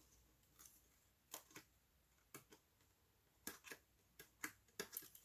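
Faint, scattered light clicks and crinkles of die-cut foil paper being handled, with small cut pieces being poked out. They come more often in the second half.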